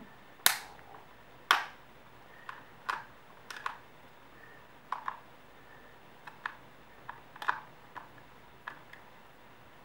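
Small screwdriver clicking and scraping against the plastic housing of a Grundig hair clipper as it is worked into holes to pry a part loose: irregular sharp clicks, the two loudest about half a second and a second and a half in, then lighter clicks scattered throughout.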